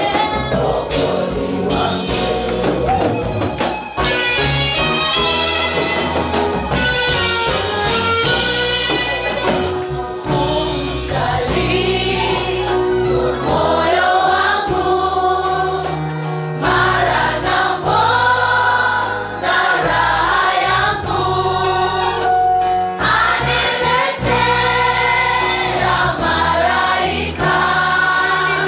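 Church choir singing a Swahili gospel hymn, with band accompaniment: low sustained bass notes under the voices and a regular beat.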